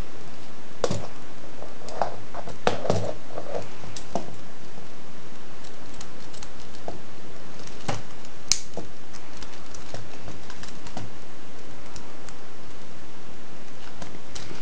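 Scattered plastic clicks and light rattles of a Lego brick rifle's mechanism being handled: a cluster in the first few seconds, one sharp click near the middle, and lighter ticks after it. All of this sits over a steady hiss.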